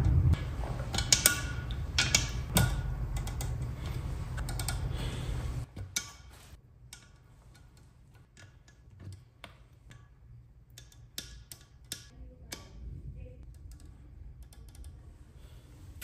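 Light, scattered metallic clicks and taps of small valvetrain parts being handled and seated in an aluminium cylinder head. Background music plays under the first few seconds and cuts off about six seconds in.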